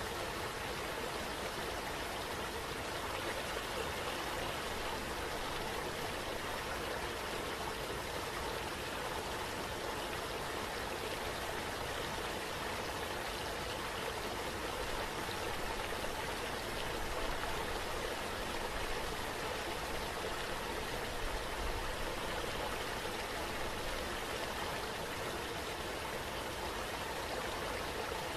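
Running water, a steady even rushing.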